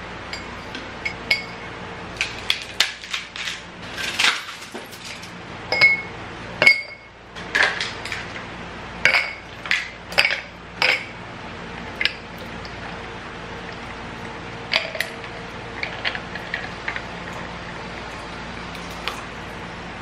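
Ice cubes being dropped into a glass tumbler, clinking against the glass and each other in a quick irregular series, several hits leaving a short glassy ring. A few lighter clinks follow in the second half, over a faint steady hum.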